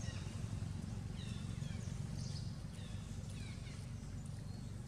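Outdoor ambience: a steady low rumble with a scattering of short, high chirps that fall in pitch, from an animal.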